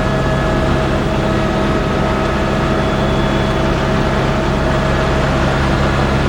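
Helicopter cabin noise in flight: a loud, steady engine and rotor drone with a constant whine running through it.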